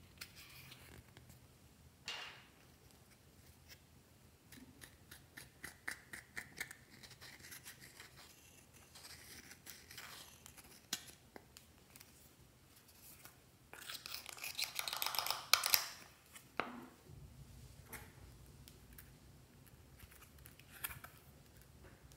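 Makeup eyeshadow palettes being handled and opened: small clicks, taps and scratchy rustling of the compact cases in the fingers, busiest and loudest about two-thirds of the way through.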